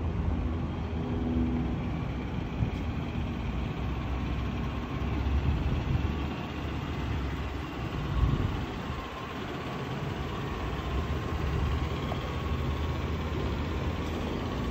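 2004 Ford F-150 pickup's engine idling, a steady low rumble.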